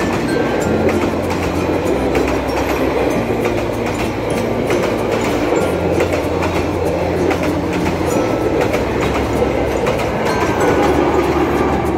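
Vietnamese passenger train's coaches rolling past close by: a steady, loud rumble of steel wheels on the rails with the clickety-clack of rail joints and a low hum underneath. It grows a little louder near the end as the tail of the train, with a red diesel locomotive, goes by.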